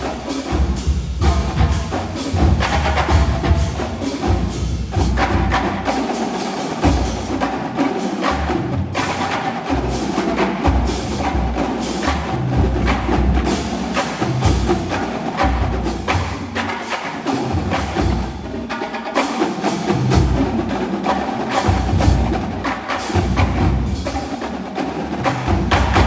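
Collegiate marching drumline of snare drums, tenor drums and pitched bass drums playing a fast, dense passage together, the low bass drum hits coming and going in bursts.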